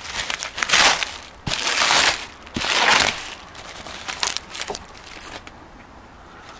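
Black plastic sheeting and duct tape being pulled off a truck door's window opening, crinkling and crackling in three loud bursts over the first three seconds, then a few lighter rustles.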